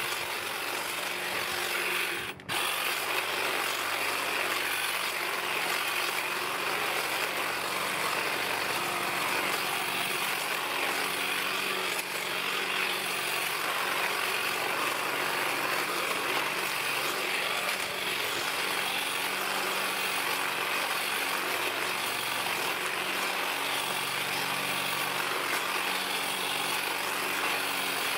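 Black+Decker GTC18504PC 18 V cordless hedge trimmer running steadily, its blades cutting along a privet hedge. There is a brief dropout about two seconds in.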